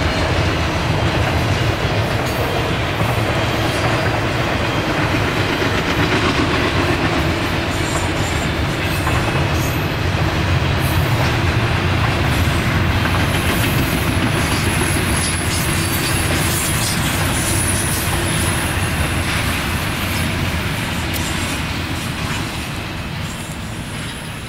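Double-stack intermodal freight cars rolling past on the rails: a steady rumble with the wheels clacking over rail joints, and a thin high wheel squeal about halfway through. The sound fades near the end as the last cars pass.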